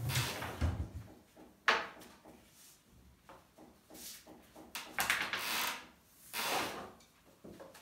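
Long, thin wooden rolling pin (oklava) rolling and rubbing over a sheet of yufka dough on a glass tabletop, as the dough is wound on and rolled out. The sound is a run of separate swishing strokes with short pauses between them.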